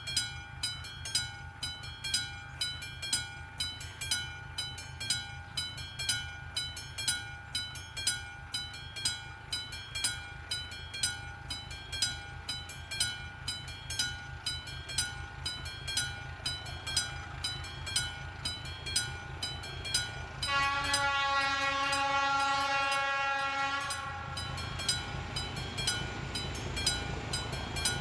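The classic mechanical warning bell of an AŽD 71 level crossing rings in a steady, even rhythm of strokes while the warning is active. About twenty seconds in, the approaching train gives one long horn blast lasting several seconds. After that, a low rumble from the train grows under the bell.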